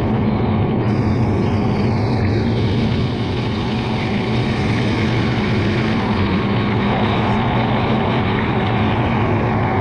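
John Deere 7450 self-propelled forage harvester working under load, heard from on board: a loud, steady engine and chopper drone as it blows chopped grass into a silage trailer alongside.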